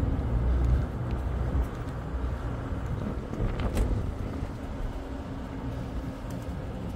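Wind buffeting the microphone over the low, steady hum of a moored ship's machinery, with one sharp click about four seconds in.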